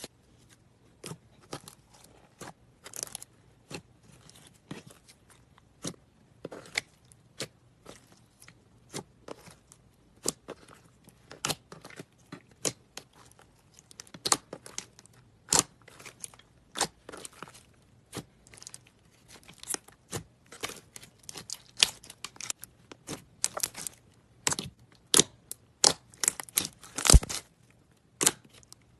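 Slime being squeezed and stretched by hand, giving irregular sticky pops and crackles a few times a second. They grow denser and louder toward the end.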